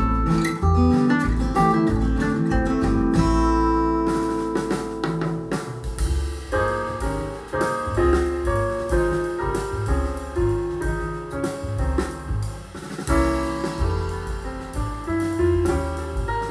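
Recorded music played through a pair of B&W Vision V201 bookshelf speakers in a room. A folk track with strummed acoustic guitar ends about four seconds in, and a jazz track with piano takes over.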